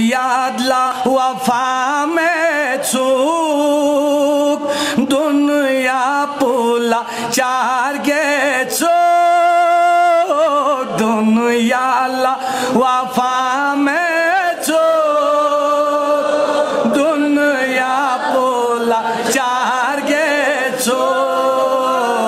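A man's solo voice reciting a manqabat, a devotional Urdu-tradition poem, sung unaccompanied into a microphone. The melody is ornamented and bending, with a long held note about nine seconds in.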